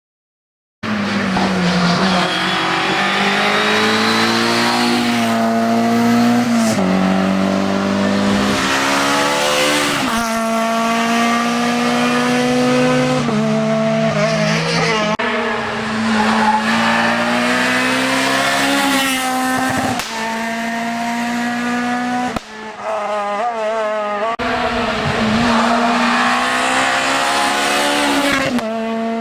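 Hill-climb race car engine pulling hard at high revs, its pitch climbing and then dropping back again and again through the gear changes, with a brief lift off the throttle about two-thirds of the way through.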